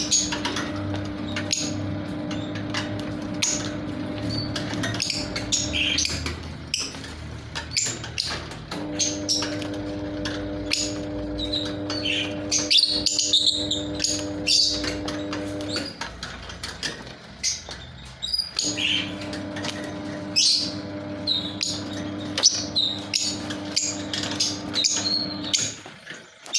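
Lovebirds chirping and twittering in many short, high calls. Beneath them a steady low tone with overtones runs in three long stretches, stopping and starting again twice.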